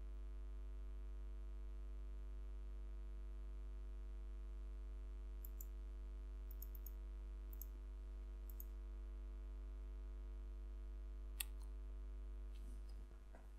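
Steady low electrical mains hum on the recording, with a few faint clicks in the middle and one sharper click near the end.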